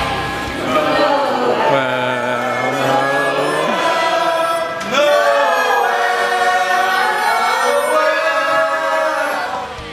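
Several voices singing a Christmas carol together in two long phrases, with a short break about five seconds in.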